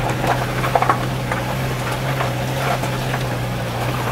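Car engine running under load with a steady low drone, heard from inside the cabin, as the car climbs a rough stone road; tyres crunch over the rocks with scattered knocks.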